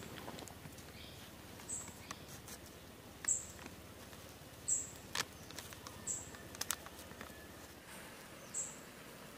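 Wood fire crackling in a portable wood-burning camp stove, with scattered sharp pops and snaps. A short high chirp repeats every second or two over it.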